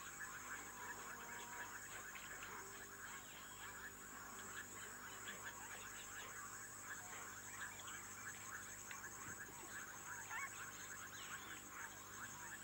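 Faint chorus of many frogs calling at once: a dense, unbroken stream of short overlapping chirps and clicks over a steady high buzz.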